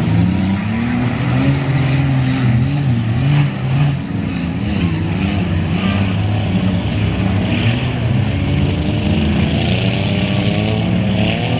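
Engines of several off-road derby cars running and revving on a dirt track, their pitches wavering up and down over one another. Near the end one engine revs up in a steady rise.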